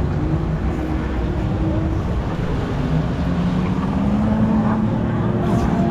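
Steady rush of water and low rumble around a round raft on a river rapids water ride, with a faint held hum underneath.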